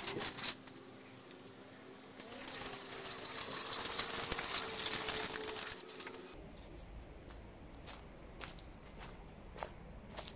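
Small wheels of a hydraulic engine crane rolling and crunching over gravel and dry leaves as it is pushed along. The crunching is loudest for about four seconds in the middle, then gives way to scattered clicks and knocks.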